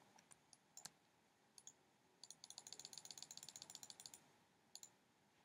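Faint computer mouse clicks: a few single clicks, then a quick run of about ten clicks a second for some two seconds in the middle, then one more click near the end.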